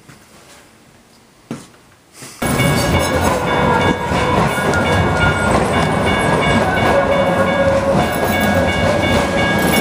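Quiet room tone, then after about two seconds a sudden loud light-rail train passing close by: an even rumble and rail noise with several steady high tones ringing over it.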